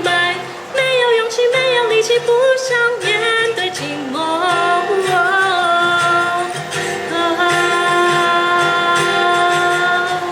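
A woman singing a wordless melody over a pop accompaniment with guitar; from about halfway she holds long, steady notes.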